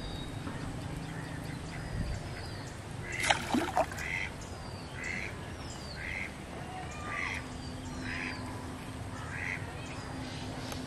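A duck quacking repeatedly, about one quack a second, with small birds chirping thinly. A short, loud, sudden sound comes about three seconds in, just before the quacking starts.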